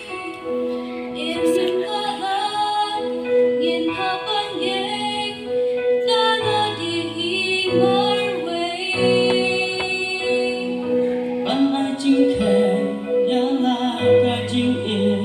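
Women's church choir singing a hymn in several parts at once, voices held and moving together without a break.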